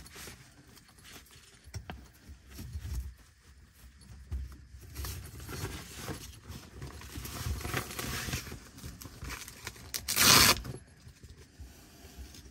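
Rustling and scraping of nylon tent fabric and bedding as someone settles in, with low bumps throughout. About ten seconds in comes one short, loud zip.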